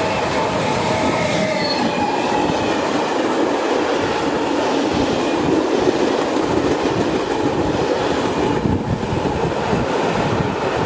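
Freight train passing close by: locomotive and empty stanchion wagons running steadily and loudly over the rails, with a few faint wheel-squeal tones about one to two seconds in.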